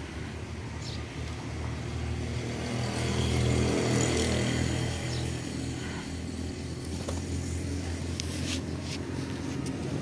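Motor vehicle engine hum that grows louder to a peak about four seconds in and then eases off, like a vehicle driving past.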